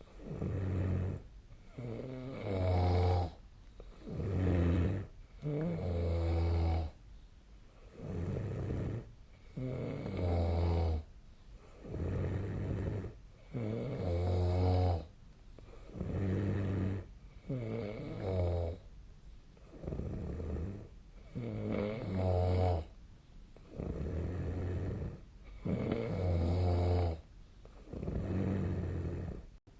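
A person snoring in their sleep: a loud, rattling snore about every four seconds, with quieter breaths in between.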